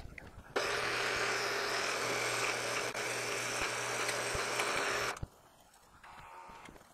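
Milling machine running with its spindle drilling into a metal plate: a steady machine noise over a low hum that starts suddenly about half a second in and cuts off suddenly about five seconds in.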